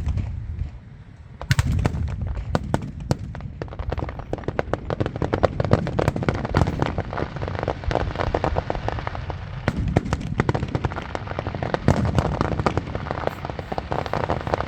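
Fireworks show: dense, rapid crackling pops over low booms, a barrage that restarts after a brief lull about a second in and keeps going.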